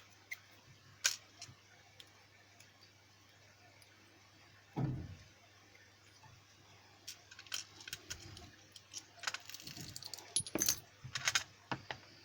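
Small brass lock pins and parts from a disassembled Lockwood padlock being handled, giving sharp metallic clicks and light rattles that bunch together in the second half. A dull knock about five seconds in.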